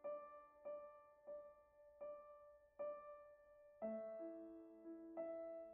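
Quiet, slow piano music: one note struck over and over, about every two-thirds of a second, then lower notes come in with a change of chord about four seconds in.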